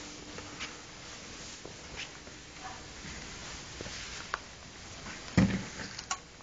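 Scattered light knocks and clicks indoors, with one louder, heavier thump about five and a half seconds in and a sharp click just after it.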